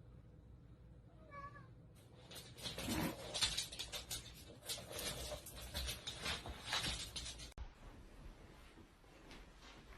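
A cat gives a short meow about a second in. Several seconds of rustling, scuffling and knocking noises follow, louder than the meow.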